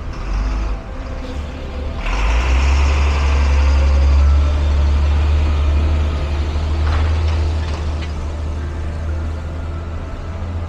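A heavy vehicle, a bus or truck, passes close by on a wet street. Its deep engine rumble swells about two seconds in, rising in pitch as it pulls away, peaks a couple of seconds later and then slowly fades under a steady hiss. There is a short sharp hiss about seven seconds in.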